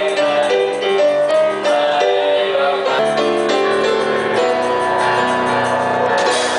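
Live stage music led by a piano: a run of short melody notes, then longer held notes. A rush of noise comes in near the end.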